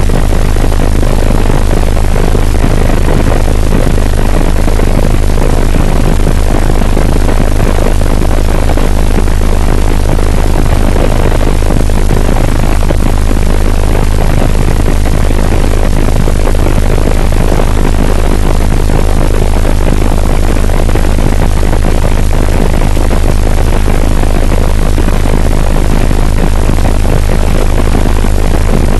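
Helicopter in flight: loud, steady engine and rotor noise with a constant low drone underneath.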